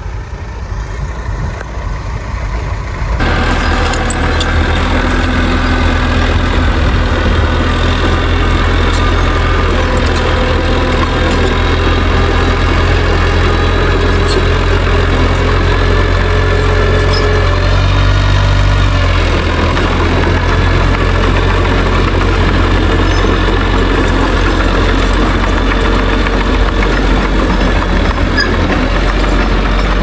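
Small Mitsubishi crawler bulldozer's diesel engine running steadily as the dozer pushes rubble. It is quieter for the first three seconds and gets loud about three seconds in. The engine note shifts briefly a little past halfway.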